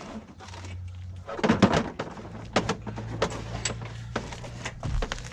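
Scattered knocks, taps and rattles of a new brake cable being fed along the metal frame of a Polaris Ranger side-by-side, with the loudest clatter about a second and a half in, over a steady low hum.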